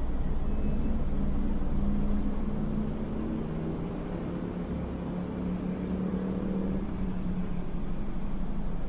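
Steady low rumble of a vehicle, with a faint tone that slowly rises in pitch from about four seconds in and cuts off just before seven seconds.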